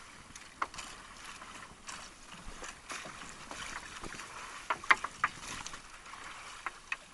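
Water sloshing and splashing against the hull of a small paddled outrigger boat, with a scattered handful of sharp light knocks.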